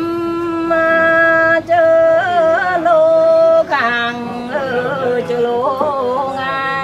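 A woman singing a Mường folk song unaccompanied, holding long notes with ornamental wavering bends. A long held note breaks off about three and a half seconds in, and a lower, more ornamented phrase follows.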